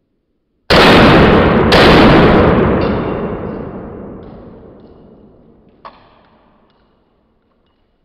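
Two pistol shots about a second apart, each followed by a long echoing decay that fades over several seconds, with a small sharp click near the end.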